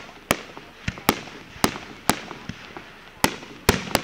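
Aerial fireworks shells going off in a display: a string of sharp bangs, about eight in four seconds at uneven spacing, each with a short echoing tail.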